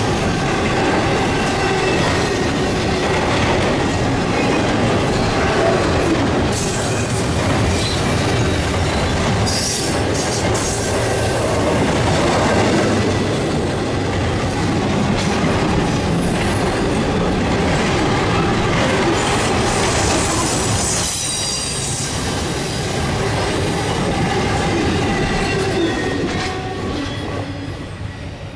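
Intermodal freight cars loaded with containers and trailers rolling past, their wheels rumbling and clacking over the rails, with brief high wheel squeals about ten and twenty seconds in. The sound fades away near the end as the last car goes by.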